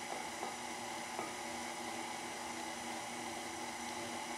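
KitchenAid stand mixer running steadily at low speed with a dough hook in a glass bowl of flour, a constant motor hum and whine. A few light clicks in the first second or so.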